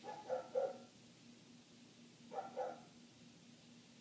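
Dog barking in short bursts: about three quick barks right at the start and two more about two and a half seconds in.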